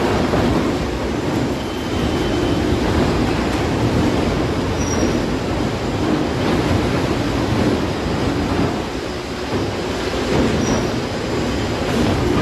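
Valon Kone ring debarker running as logs feed through it, its rotating tools stripping off the bark: a loud, continuous mechanical rumble that swells and eases slightly, dipping briefly about nine seconds in.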